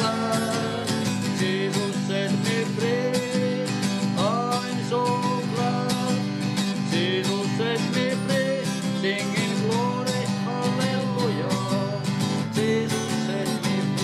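A man singing a Finnish spiritual song, accompanying himself on a strummed acoustic guitar.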